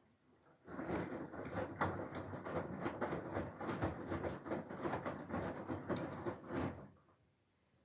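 Whirlpool FSCR90425 washing machine drum turning during the rinse, wet laundry and rinse water sloshing and splashing inside it. It starts just under a second in and stops shortly before the end.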